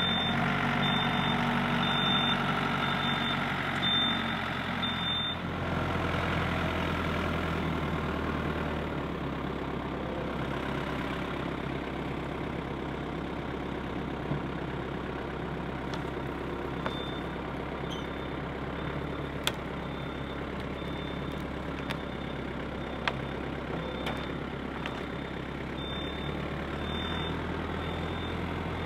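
Yanmar compact tractor's diesel engine running steadily as it works a log grapple, working harder for about the first five seconds and then settling. A short high beep repeats about once a second at the start and again near the end, and a few sharp clicks come in the middle.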